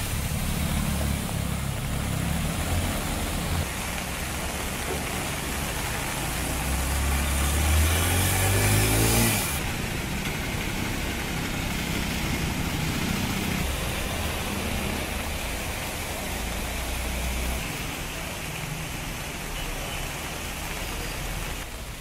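Small motorcycle and auto-rickshaw engines running as they wade through flood water on a street, under a steady hiss of water and spray. About six to nine seconds in, one engine revs up with rising pitch along with a louder rush of spray, then the sound changes abruptly.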